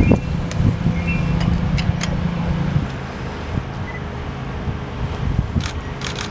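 A vehicle engine running steadily in a low hum that drops back about three seconds in, with scattered clicks and knocks and wind on the microphone.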